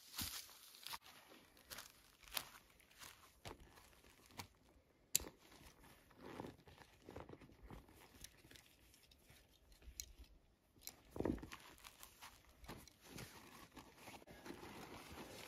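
Rustling and crinkling of a waterproof roll-top dry bag being unrolled and rummaged through. Scattered light clicks run through it, with one sharper click about five seconds in.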